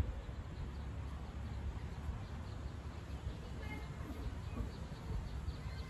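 Outdoor ambience: a steady low rumble, as of wind on the microphone, with faint bird chirps in the second half.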